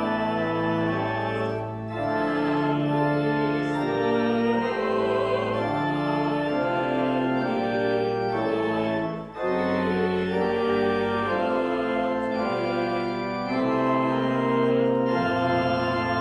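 Church organ playing a hymn in slow, held chords, with short breaks between phrases about two seconds in and again about nine seconds in.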